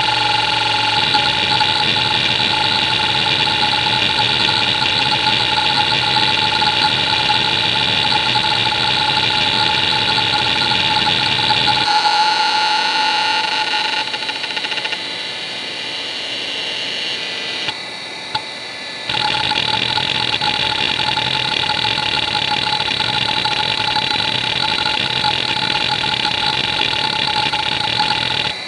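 Conner CFS425A 425 MB IDE hard drive seeking rapidly under a benchmark: a dense, loud buzz of head-actuator seeks over the spindle's steady whine. About twelve seconds in it thins to a lighter, higher buzz of short track-to-track seeks and drops quieter. Around eighteen seconds it pauses briefly, then the loud rapid random seeks resume until just before the end.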